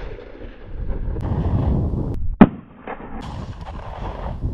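A single gunshot from a semi-automatic handgun about halfway through, sharp and loud, followed by a fainter crack half a second later, part of slow, deliberate fire with about three seconds between shots.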